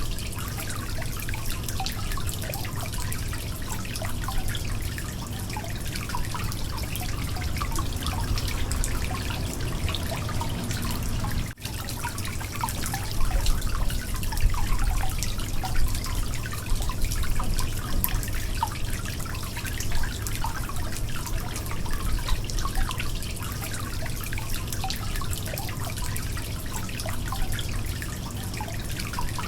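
Water leaking: many small irregular drips over a continuous trickle, with a steady low hum underneath. The sound cuts out for an instant about twelve seconds in.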